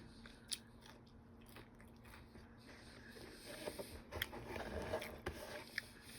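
Faint close-up eating sounds: scattered clicks and chewing noises, getting busier about halfway through.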